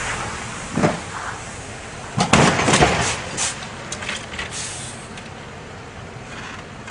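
Road traffic on a snow-covered road, with a snowplow truck and cars going by, and a cluster of short sharp knocks and clatters about two to three seconds in before it settles to a steady rumble.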